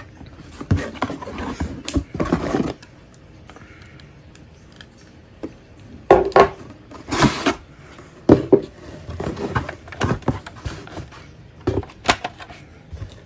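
Cardboard box being opened and unpacked by hand: flaps, a moulded paper-pulp insert and the contents scraping and rustling in irregular bursts with a few knocks, with a quieter pause of a few seconds after the first couple of seconds.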